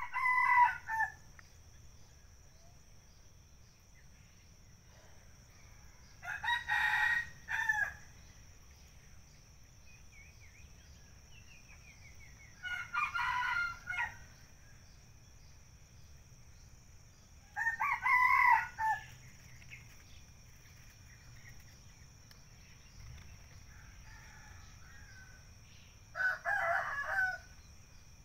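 Rooster crowing five times, each crow a little over a second long and spaced about five to eight seconds apart, over a faint steady high-pitched tone.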